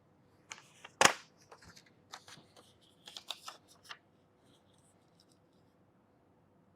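Pocketknife blade slicing paper in a sharpness test: a handful of short rustling cuts, the loudest about a second in, stopping after about four seconds.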